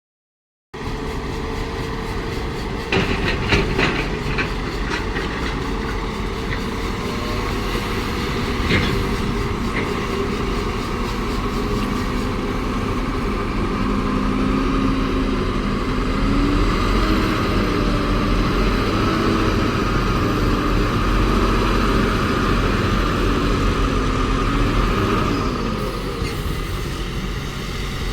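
Caterpillar excavator's diesel engine running under load while digging, its note wavering up and down in the second half. A few sharp clanks come in the first ten seconds.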